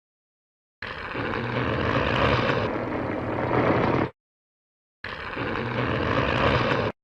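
Two film sound-effect clips from the Heisei Godzilla films, each a steady, engine-like rumble with a low hum. The first runs about three seconds from just under a second in; the second starts about five seconds in and cuts off abruptly just before the end.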